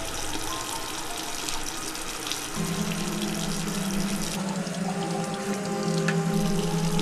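A tap running steadily into a bathroom sink, under background music whose low held note comes in about two and a half seconds in.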